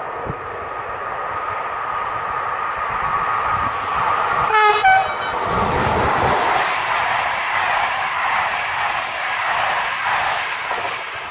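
A train passing on the line, sounding a short two-note horn about four and a half seconds in, followed by the swelling rush of wheels and cars going by, which fades near the end.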